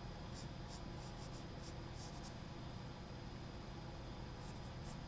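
Charcoal pencil scratching lightly on sketchbook paper in short strokes, several in the first couple of seconds and a few more near the end, over a steady low room hum.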